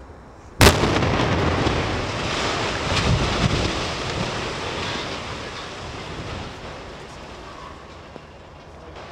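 Demolition charges in the legs of a concrete precipitator tower, wrapped in water bags to contain the blast, detonate with one sharp bang. The rumble and crash of the tower collapsing follows, with a further crash about three seconds in, fading away over several seconds.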